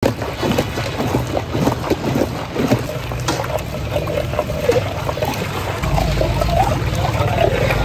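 Mango juice with chunks of ice sloshing and splashing in a large metal pot as it is stirred, ice knocking against the sides, then a steel mug scooping through the liquid.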